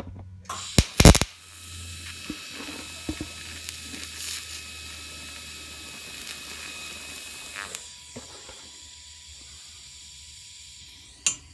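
TIG welding torch tacking a steel nut: a sharp crackle as the arc strikes about a second in, then a steady hiss that drops quieter about eight seconds in.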